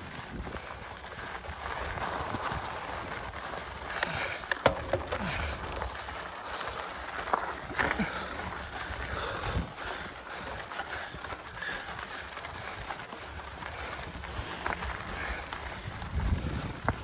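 Mountain bike being ridden on a dirt trail: a steady rush of wind and tyre noise with low rumble, and a few sharp clicks and rattles from the bike about four seconds in.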